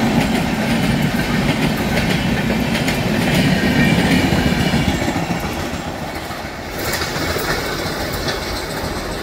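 LHB passenger coaches of an express train running past on the adjacent track, their wheels rumbling on the rails. About two-thirds of the way through, the rumble thins and drops as the last coach draws away.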